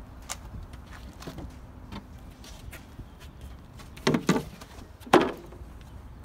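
A sheet of 20 mm plywood being lifted out of a car boot, with light scrapes and clicks of wood against the car, then two louder knocks about four and five seconds in as the board is handled and set down on the tarmac, the second the louder.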